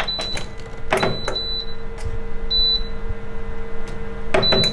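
Countertop air fryer oven's control panel beeping as it is set to bake at 350°F: four short high beeps with button and knob clicks. Its fan then runs with a steady hum as the oven starts preheating.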